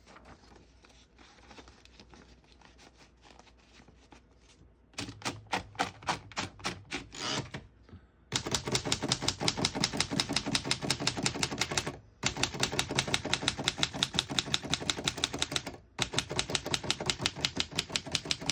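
1924 Remington Portable manual typewriter being typed on. Faint scattered clicks at first, then separate keystrokes from about five seconds in, then fast, even rapid-fire keystrokes from about eight seconds in, with two short breaks.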